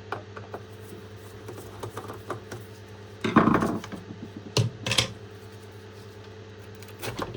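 Hard plastic parts of a Roomba robot vacuum being handled as its battery compartment is opened and the battery taken out: a scraping rattle just after three seconds, two sharp knocks a second later, and a few light clicks near the end.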